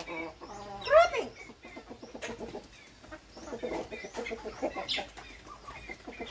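Chickens clucking, with one loud rising squawk about a second in, followed by a run of short clucks.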